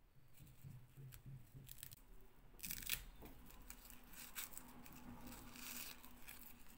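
Faint rustling and soft clicks of a fashion doll being handled while its small fabric top is pulled off over its head, with a sharper click a little under three seconds in.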